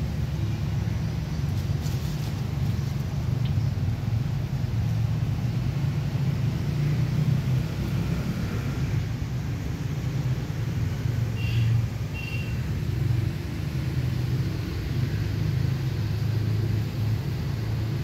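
Wind buffeting the phone's microphone: a steady low rumble that swells and eases.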